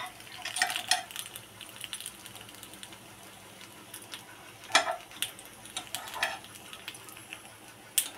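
A metal spoon clicking and scraping against a non-stick appe pan as the appe are turned in their cups: a few separate sharp clicks, the loudest near the end, over a faint sizzle of frying.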